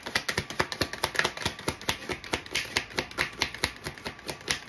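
A deck of tarot cards being shuffled by hand: a quick, uneven run of card slaps and clicks, several a second, as the cards are mixed before the next card is drawn.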